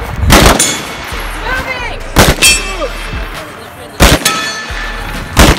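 Four rifle shots from an AR-15-style carbine, spaced about two seconds apart. A brief metallic ringing follows some of the shots.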